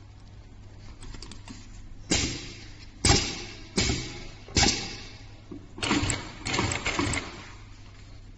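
Industrial direct-drive double-needle compound-feed sewing machine stitching in short runs, about six clattering bursts of a second or less, each starting sharply and trailing off, over a low steady hum.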